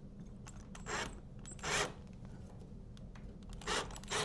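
Four short rasping scrapes, about a second in, near two seconds in, and twice near the end, as a door-knob latch assembly is worked and adjusted in the edge of a door.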